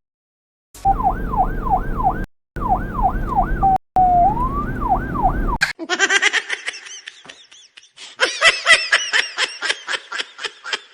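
Fake police siren sound effect, a fast rising-and-falling wail that breaks off twice briefly. About halfway through it gives way to a different, higher sound effect that repeats rapidly.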